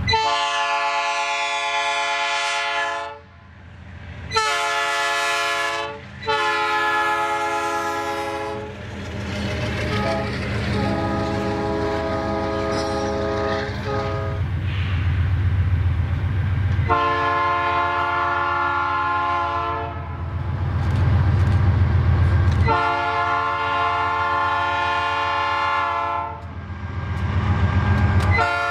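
Diesel freight locomotive sounding its horn in a series of long blasts, about seven, the last starting near the end, over the steady low rumble of the passing train.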